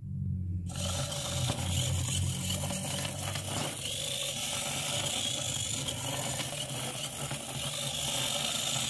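The small DC gear motors of a Keyestudio KS4036F micro:bit robot car whirring steadily as the car drives in its light-tracking mode.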